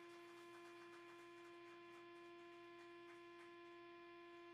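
Faint steady electrical hum from the stage guitar amplifiers and PA, holding one constant pitch, with a few faint ticks.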